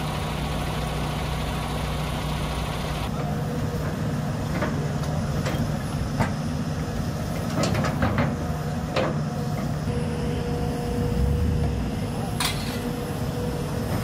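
Tracked excavator's diesel engine running steadily as its bucket presses backfill dirt down into a trench, with several sharp knocks from the bucket and arm.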